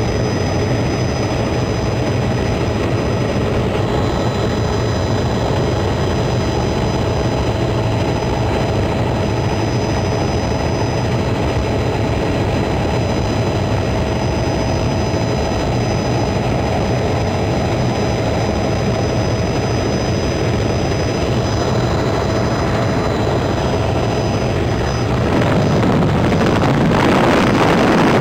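Helicopter in flight: a loud, steady drone of engine and rotor with a few steady whining tones, growing louder about 25 seconds in.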